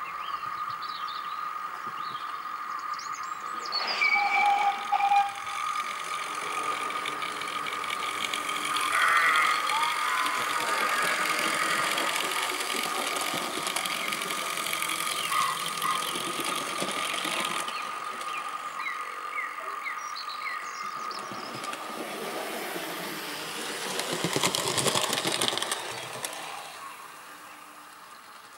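OO gauge model trains running on the layout: a steady high motor whine with wheels rattling over the track. The sound swells about three quarters of the way through as a train passes close, then fades.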